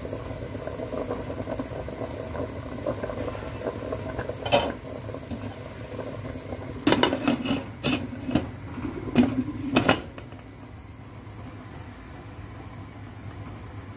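Covered stockpot of soup boiling, a steady bubbling hiss. There is a single clink about four and a half seconds in, then a run of sharp clinks and knocks of pots and lids from about seven to ten seconds in. After that it drops quieter.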